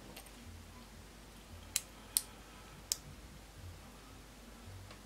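Three light, sharp clicks in quick succession, about a second apart: small plastic model-kit parts being handled and fitted together.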